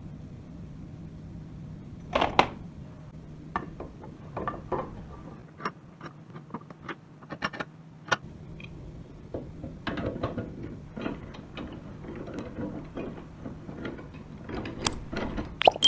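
Irregular clicks and knocks of small metal mechanism parts being handled, the loudest knock about two seconds in, over a low steady hum.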